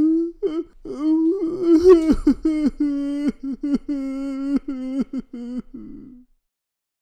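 Cartoon character's wordless babbling voice, a run of short sung-sounding syllables with a brief rough burst about two seconds in, stopping about six seconds in.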